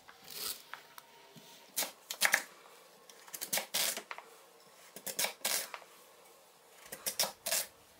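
Kitchen knife slicing through a peeled raw taro on a wooden chopping board. The cuts come as a series of short, separate crunches, often in pairs, about one every second.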